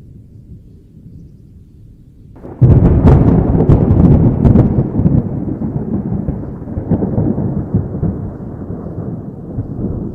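Thunder: a low distant rumble, then a sudden close thunderclap about two and a half seconds in, with sharp crackles over the next two seconds, rolling on and slowly fading.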